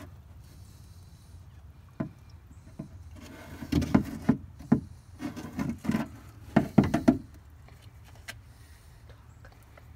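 Irregular knocks, taps and rustles of handling a plastic mixing cup while pouring thickened epoxy, with a single knock about two seconds in and a cluster from about four to seven seconds in.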